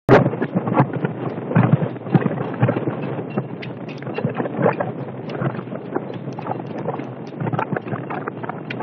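Strong wind buffeting the microphone in uneven gusts, with a sharp bump right at the start.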